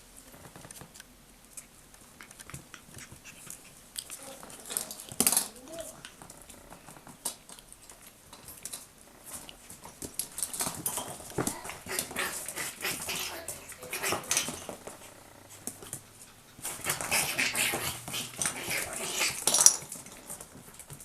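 Chihuahua puppies moving about, with a short yelp and small whimpering noises amid scattered clicks and rustling that get busier in two stretches in the second half.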